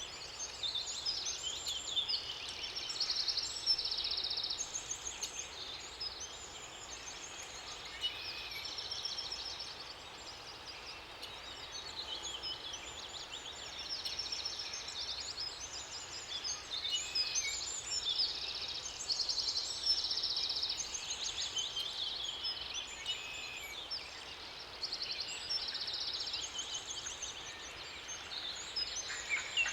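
Several songbirds singing, with many overlapping short trills and chirps, over a faint steady rush of water.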